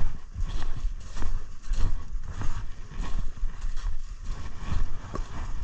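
Footsteps tramping briskly through dry leaves and brush, a crunching step about every half second, over a low rumble on the microphone.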